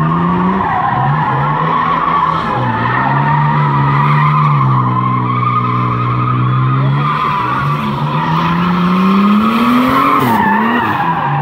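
BMW E30 Touring drifting in circles on concrete: the engine is held at high revs while the rear tyres squeal without a break. The engine pitch climbs toward the end, dips sharply for a moment, then picks up again.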